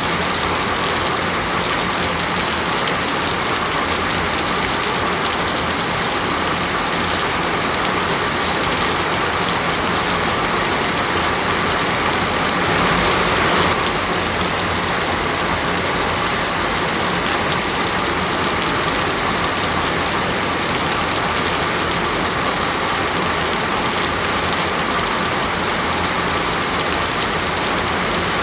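Steady rain falling in an even, continuous hiss, briefly a little louder about halfway through.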